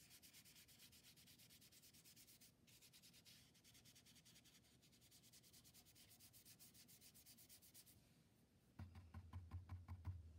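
Paintbrush scrubbing red paint onto paper in quick back-and-forth strokes, a soft rapid scratching with a brief pause about two and a half seconds in. Near the end the strokes stop and a louder low hum with fast ticking takes over.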